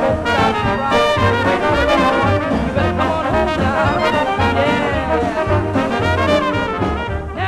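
Traditional jazz band playing an instrumental break, with trumpet and trombone playing together over a steady, pulsing bass line. There are a few sliding trombone notes near the middle.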